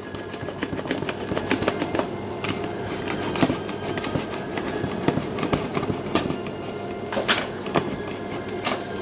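A potato being pushed repeatedly across a vegetable slicer's blade, cutting thin slices with irregular scraping clicks, over a steady sizzle of onions frying in olive oil.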